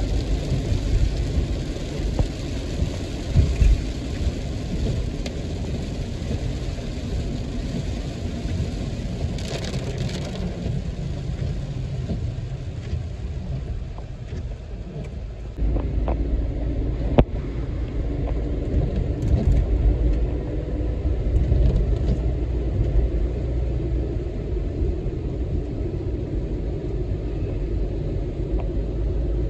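Road and engine rumble heard inside a moving car in heavy rain, with rain on the windshield. The noise steps up abruptly about halfway through, and there is a single sharp click shortly after.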